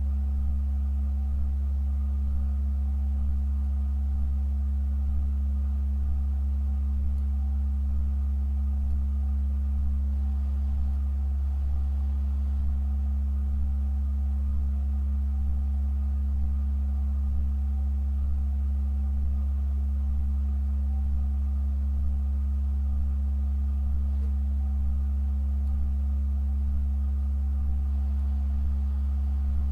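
Pipe organ holding a very low, deep bass tone with a quieter steady tone above it, sustained without change.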